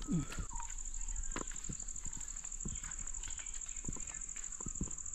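Irregular scrapes, rubs and knocks of a person climbing down a jackfruit tree trunk, hands, feet and sarong against the bark, over a steady high-pitched insect drone.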